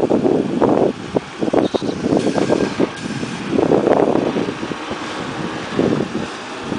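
Dodge Ram Power Wagon's 5.7-litre HEMI V8 running at low speed as the truck crawls down over rocks, with uneven gusts of wind buffeting the microphone.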